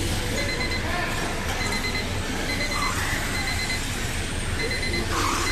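Short electronic beeps, about one a second, over a steady background hum and hiss.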